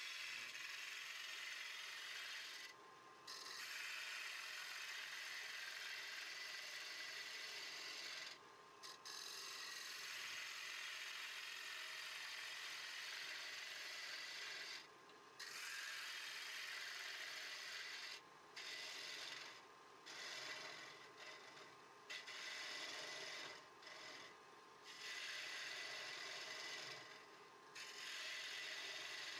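A gouge cutting the inside of a spinning she-oak bowl on a wood lathe, making a steady hiss as the shavings come off. The hiss breaks off briefly every few seconds as the tool comes off the wood between passes.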